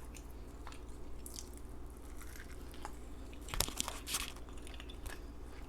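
A person chewing McDonald's fast food close to the microphone: moist chewing and smacking clicks, with a louder cluster of bites and smacks about three and a half seconds in.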